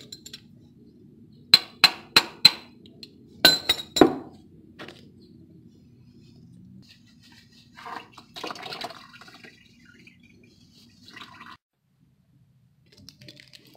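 Sharp metallic clinks in two quick runs of about four each, from metal parts and tools knocking together as the old spin-on oil filter is worked off. Softer rustling and handling noises follow.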